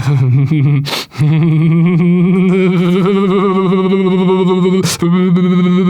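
A man humming a long, steady droning note as a mouth-made machine sound effect. The drone breaks off briefly about a second in, comes back slightly higher, and is cut by a sharp click near the end.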